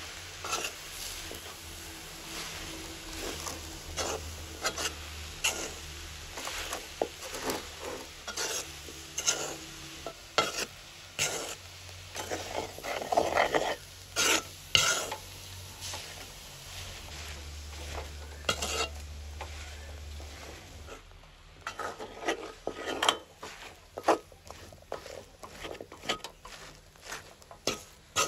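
A ladle stirring and turning chopped winged beans and jackfruit seeds in a wide metal pan: irregular scrapes and knocks of the ladle against the metal, with the rustle of the shredded beans, easing off briefly about three-quarters of the way through.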